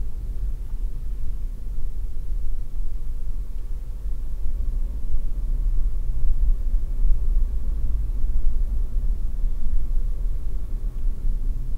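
Car driving noise heard from inside the cabin: a steady low rumble of engine and tyres at town speed, a little louder past the middle as the car picks up speed.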